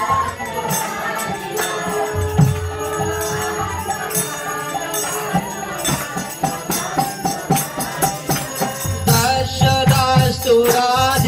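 Devotional kirtan music: a bamboo flute plays a wavering melody over irregular hand-drum strokes and jingling small cymbals.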